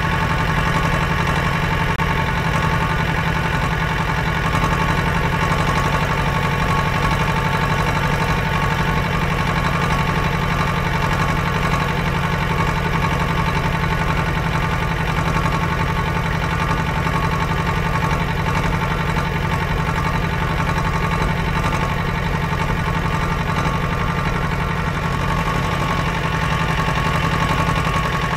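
An engine running steadily: an even mechanical hum that holds the same pitch and loudness throughout.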